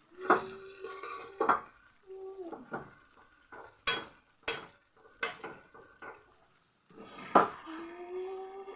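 A spatula stirring and scraping a thick, sticky pickle mixture in a metal pan, knocking against the pan several times. The scrapes come out as drawn-out squeaky tones, the longest near the end.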